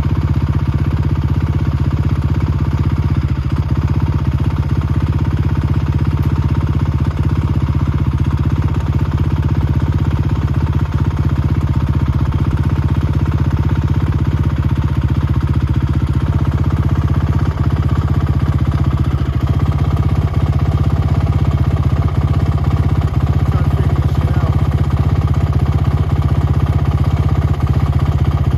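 Honda TRX450 quad's single-cylinder four-stroke engine running steadily at a constant speed.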